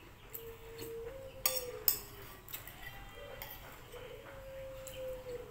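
Metal spoon clinking against a ceramic bowl of chicken soup, two sharp clinks close together about a second and a half in, with lighter taps of the spoon around them.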